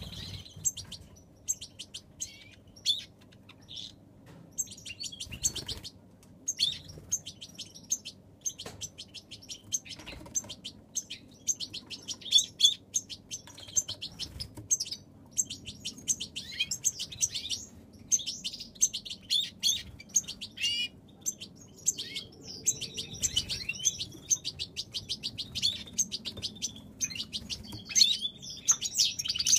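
European goldfinches twittering, a near-continuous string of rapid high chirps and trills, with brief flutters of wings.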